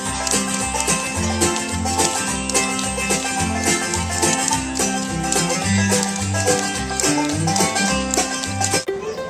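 Bluegrass music with banjo picking over a bass line, cutting off near the end.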